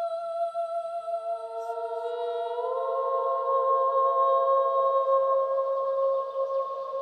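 Electroacoustic music of long, overlapping held voice-like tones. One high note is sustained, and about a second in a lower note enters and slides slightly upward, the texture swelling midway.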